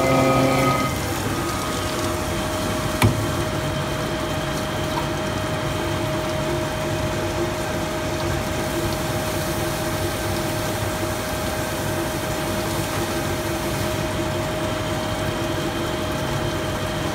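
Milling machine running steadily: a constant whine over even machine noise, with one sharp click about three seconds in.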